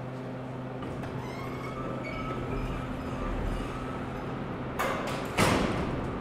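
Elevator doors sliding shut, ending in two loud thuds about half a second apart as they meet, over a steady low hum.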